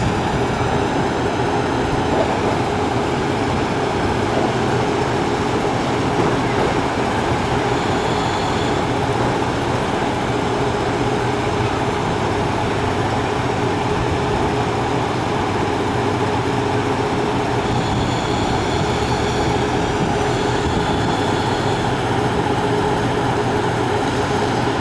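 JR Hokkaido KiHa 183 series 5200 diesel railcars idling with their engines warm after start-up, a steady low running note with no change in speed.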